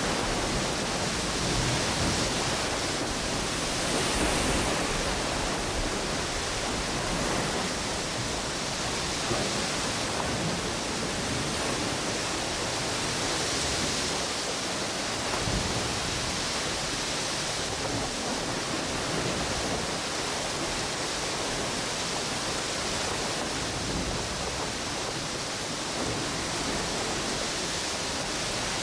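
Ocean surf washing onto a beach with strong wind, a steady rushing noise that swells gently every several seconds, with wind buffeting the microphone in a low rumble.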